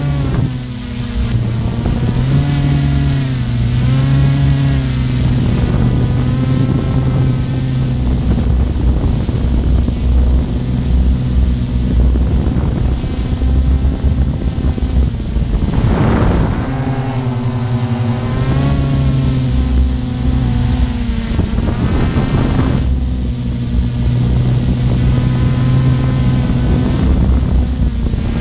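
Multirotor drone's motors and propellers humming steadily, the pitch of the hum shifting up and down as it hovers and manoeuvres, with brief rushes of noise about halfway through and again a few seconds later.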